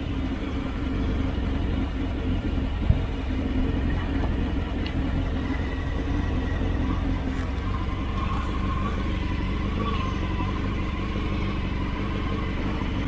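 Yamaha MT-10 inline-four engine with an Austin Racing decat exhaust, running steadily. There is a single sharp click about three seconds in.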